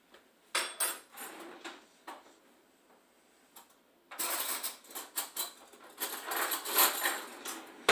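Clattering and rattling of kitchen items being handled at a counter a few metres away. A short spell comes about half a second in, and a longer, busier one runs from about halfway.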